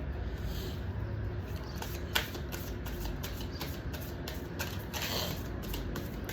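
Tarot cards being shuffled and handled: a run of soft clicks and riffles, with one sharper snap about two seconds in and a brief swishing near the end, over a steady low background rumble.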